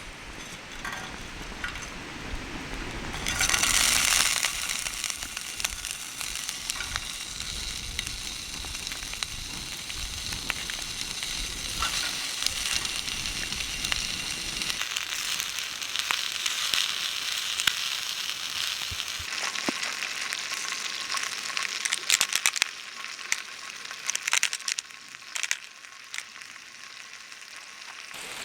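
Food sizzling in a hot pan: a sudden loud hiss about four seconds in as it starts frying, settling into a steady crackling sizzle, with a few sharp clicks near the end.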